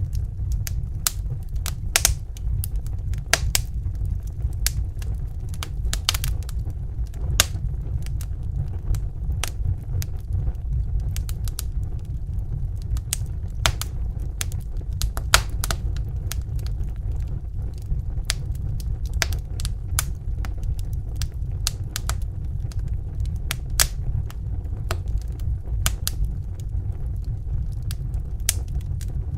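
Wood fire crackling and popping, with sharp irregular snaps scattered several times a second over a steady low rumble of burning.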